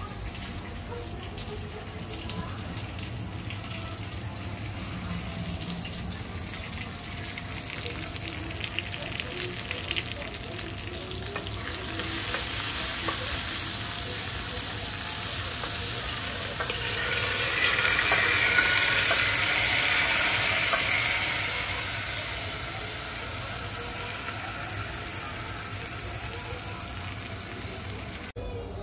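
Food frying in a pan of hot oil, a continuous sizzle that swells louder about halfway through and then eases off.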